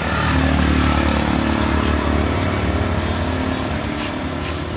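A motor vehicle engine running steadily with a low hum that swells slightly just after the start, with two sharp clicks near the end.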